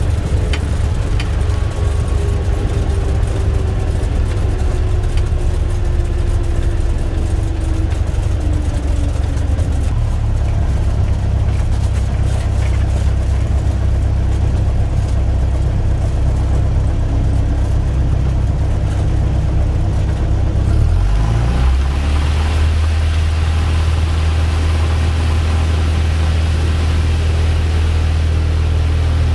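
Light aircraft's piston engine heard from the cockpit, running at low power with its note sliding slowly down over the first ten seconds. About 21 s in the power comes up sharply into a strong, steady drone with more hiss on top, as when the throttle is opened for a takeoff roll.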